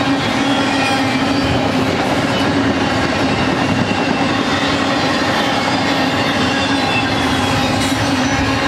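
Double-stack intermodal well cars rolling past on steel wheels: a steady rumble of wheels on rail with a low hum and faint high-pitched wheel squeals.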